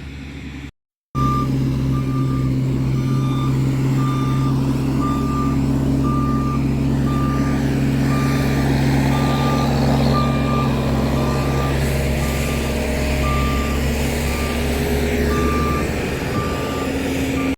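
A heavy road-construction vehicle running close by, its engine humming steadily while its reversing alarm beeps at a regular pace, a single high tone a little over once a second.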